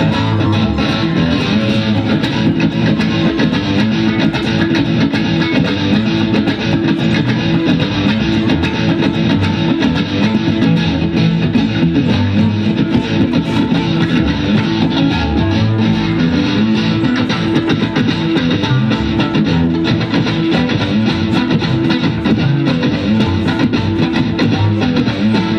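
Live instrumental music: an electric guitar playing with a violin, loud and continuous.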